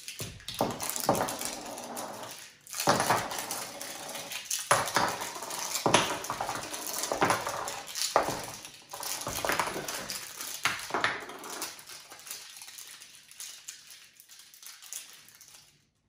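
Large backgammon checkers clacking against one another as they are handled and stacked in the hands, with repeated irregular clicks and knocks as they are set down on the board. The clicking thins out near the end.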